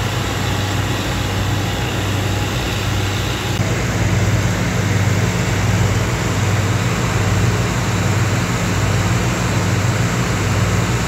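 Steady low mechanical hum over a rushing-water wash. About three and a half seconds in, it turns slightly louder and fuller, as a drainage pump's outlet pours floodwater into a channel.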